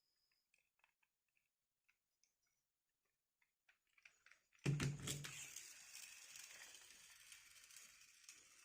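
Toy packaging being handled: faint light taps and clicks, then a sudden thump about halfway through followed by a few seconds of rustling that slowly fades.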